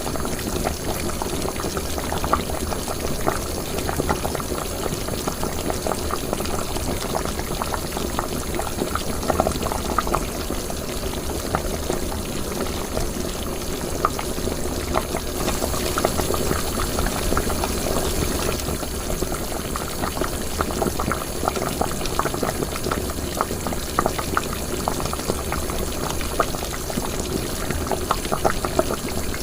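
Liquid boiling for cooking, bubbling steadily with a constant patter of small pops.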